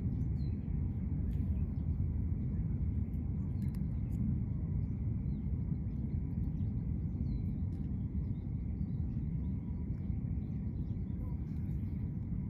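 Outdoor ambience: a steady low rumble, with faint high bird chirps now and then.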